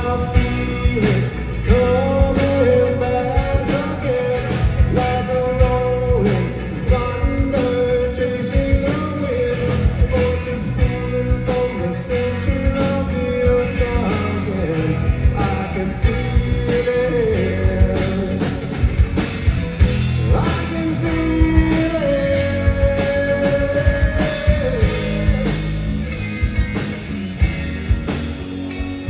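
Rock band playing, with electric guitar, bass and drums and a sustained, bending lead line, perhaps voice or guitar.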